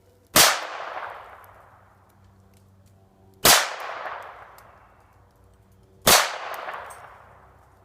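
Three gunshots about three seconds apart, each followed by a long echo dying away over about two seconds.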